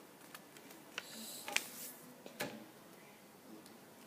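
A sheet of paper being folded and creased by hand: soft rustling with several short, sharp crackles, the loudest about halfway through.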